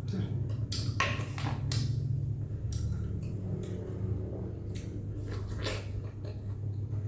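A person eating a bowl of bún mắm noodle soup: a scattering of short, sharp clinks and mouth noises from utensils and bowl, over a steady low hum.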